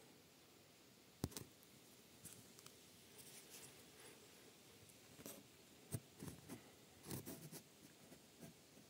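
Near silence broken by a few faint handling noises: a sharp click about a second in, another near the six-second mark, and small scrapes and rubs in between and toward the end.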